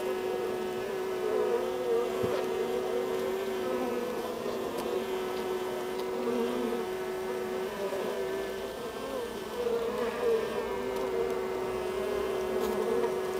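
Honeybee colony humming inside the hive, heard close to the workers on the comb: a steady drone at one pitch with a wavering, fluttering tone just above it.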